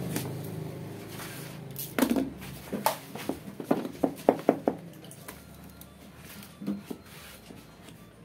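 Black vinyl sticker film being pulled, crinkled and pressed against a scooter's plastic body panels: a string of short crackles and taps about two to five seconds in, and two softer ones later.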